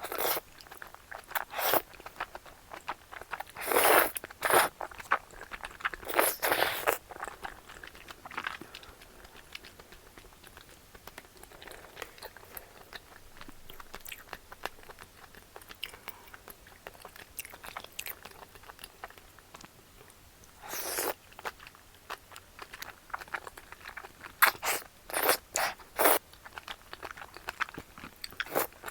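A person eating salmon rice bowl and seafood cream udon, chewing and biting in short bursts: a cluster in the first seven seconds, a quieter stretch through the middle, then more bursts near the end.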